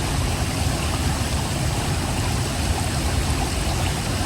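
River water rushing over rocks below a waterfall: a steady, even wash of water noise with a heavy low rumble.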